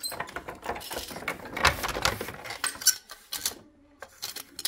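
Wooden handloom clattering as a weaver works the weft into a wool rug: a busy run of small wooden clicks and knocks, a short pause about three and a half seconds in, then more clicks.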